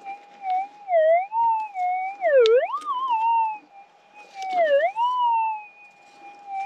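Minelab GPX 6000 metal detector's audio tone: a steady hum that wobbles down and up in pitch several times as the coil sits over a loud target. The deepest swing comes about two and a half seconds in. The target turned out to be a buried can.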